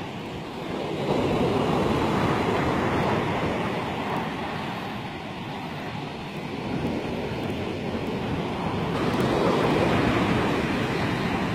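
Ocean surf breaking on a sandy beach: a steady wash of waves that swells twice, about a second in and again near the end.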